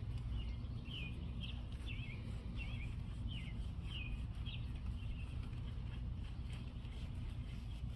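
A songbird singing a quick series of short chirping notes for about four seconds, then fainter, over a steady low rumble.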